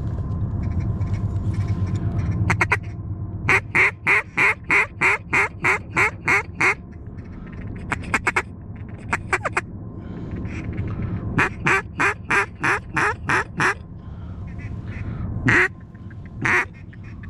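Duck quacking in long rhythmic runs of about four quacks a second, one run about three seconds in and another about eleven seconds in, with a few scattered quacks between and two louder single quacks near the end.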